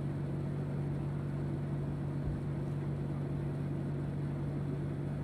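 Steady low mechanical hum over faint room noise, with one soft knock about two seconds in.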